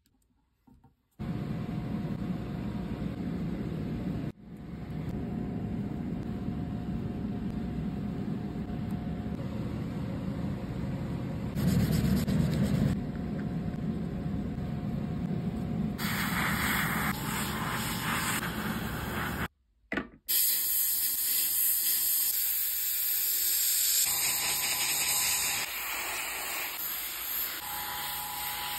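Gravity-feed airbrush spraying paint onto a steel goalie mask cage: a steady air hiss that starts about two-thirds of the way in. Before that there is a low, muffled rubbing noise from hands working the cage and tape.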